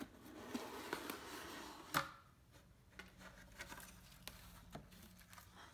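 Cardboard mailer box being opened by hand: rustling and scraping of the cardboard, one sharp snap about two seconds in, then faint rustles and ticks of paper shred filler being touched.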